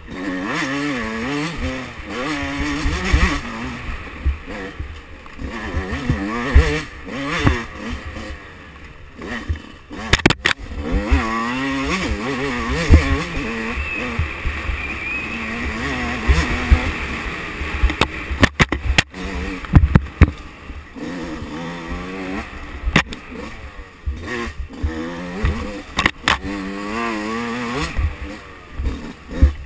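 2005 Yamaha YZ125 single-cylinder two-stroke engine, revving up and falling back again and again as the bike is ridden along a twisty dirt trail, with one longer steady pull partway through. Several sharp knocks come through over rough ground.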